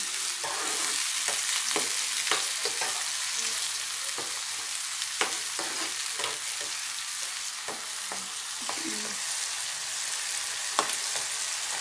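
Chopped onions and tomatoes sizzling in hot oil in a frying pan, with a steady hiss, while a steel spoon stirs them, scraping and clicking against the pan at irregular moments.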